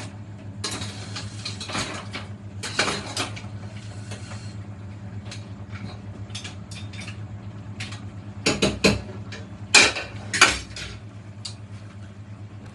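Mussels being stirred in a cooking pot: a utensil scraping and clattering against the pot and the shells in irregular knocks, with a few louder clanks about eight and a half and ten seconds in. A steady low hum runs underneath.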